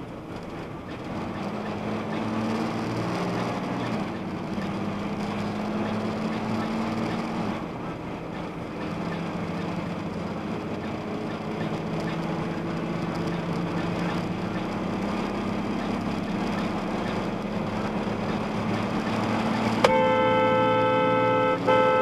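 Steady road and engine noise of a car travelling at highway speed, then about twenty seconds in a car horn sounds in a long, steady-pitched blast with one brief break near the end.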